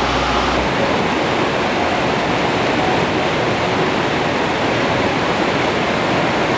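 A waterfall rushing steadily. A low hum cuts off about a second in.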